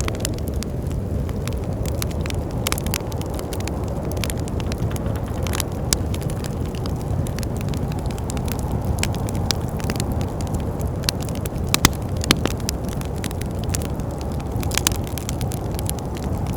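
Wood fire crackling, with irregular sharp pops and snaps, over a steady low rush of wind.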